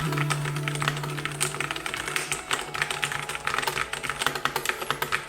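Fast typing on a Keychron wireless mechanical keyboard: a rapid, uneven patter of key clicks.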